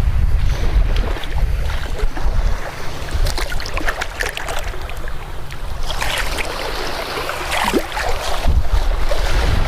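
Wind buffeting the microphone over breaking surf, a heavy uneven rumble, with scattered small clicks and rustles through the middle and again later on.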